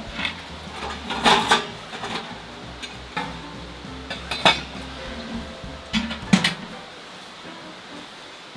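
Hard objects knocking and clinking as gear is handled, a handful of separate sharp knocks, the loudest pair about a second and a half in and two more around six seconds in.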